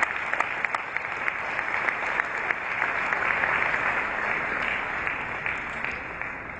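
Audience applauding: many hands clapping in a dense patter that tapers off near the end.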